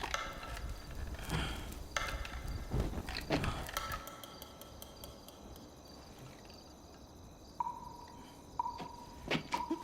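Insects chirping steadily. In the first four seconds there are several short knocks over a low rumble, and after that only the chirping stays.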